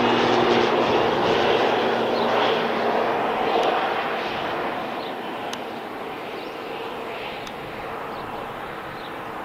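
Jet airliner's engines passing and moving away: a broad rushing roar with a steady engine tone that fades out in the first couple of seconds, the noise then slowly dying down.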